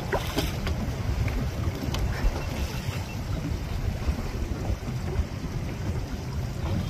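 Wind on the microphone and the wash of choppy sea around a small boat on the open ocean, a steady low rumble.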